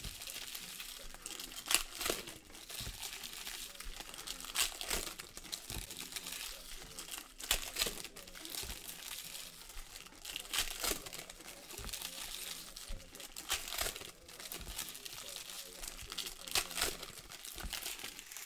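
Foil trading-card pack wrappers crinkling and tearing as packs are ripped open and handled, with sharp crackles every two to three seconds.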